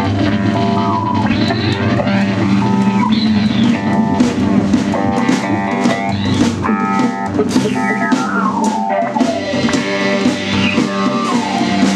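A rock band playing a loose psychedelic jam: guitar notes slide up and down in pitch over a steady drum kit.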